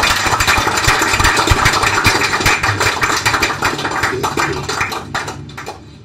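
A small group applauding, many hands clapping at once; the clapping fades away near the end.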